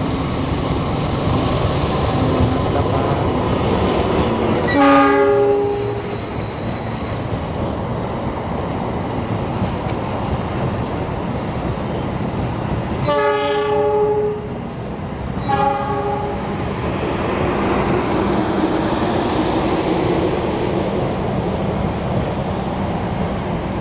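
A KAI CC206 diesel-hauled passenger train rolls past close by, its wheels clattering steadily over the track and switches. A train horn sounds three times: about five seconds in, then twice more close together about thirteen and fifteen seconds in.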